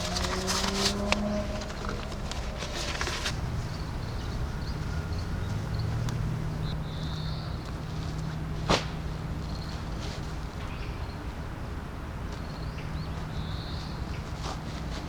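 Steady rain hiss, with rustling and small clicks of gear being handled in the first few seconds and a single sharp click about nine seconds in.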